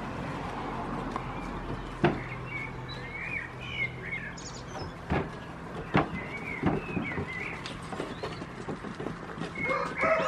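Young goats sparring head to head on a wooden platform, making several sharp knocks a few seconds apart. Small birds chirp in the background, and a rooster starts crowing at the very end.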